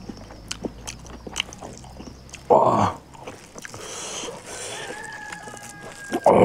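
Close-up chewing and biting of pork and rice, with wet mouth clicks throughout. There are two short, louder sounds, one about two and a half seconds in and one near the end.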